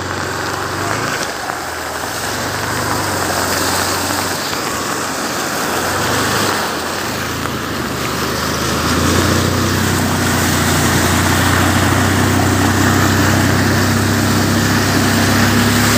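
Motor vehicle's engine running steadily as it drives through deep floodwater, with a constant rush of water splashing and spraying around the wheels. The engine hum grows louder about nine seconds in.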